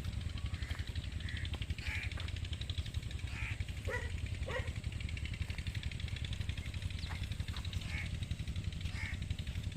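A steady engine-like drone with a fast, even pulse, with short animal or bird calls over it now and then.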